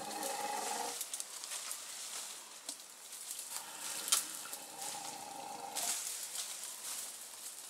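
Dry brush and leaf litter crackling and rustling as a large elephant and men shift among the branches, with sharp twig snaps about four seconds in and again near six seconds.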